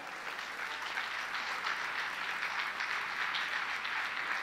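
A congregation applauding steadily: many hands clapping together.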